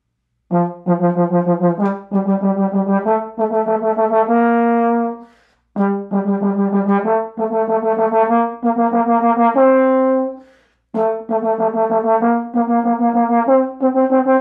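Bach 42 tenor trombone playing a double-tongued exercise: rapid repeated notes, several on each pitch, stepping upward in groups and ending on a held note. Three such phrases with short breaths between, the last running on past the end.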